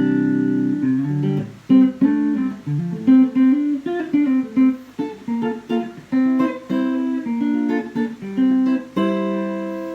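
Rebuilt Telecaster electric guitar played clean on the neck pickup with the tone rolled down: melodic phrases of single picked notes, with a held chord near the start and another near the end.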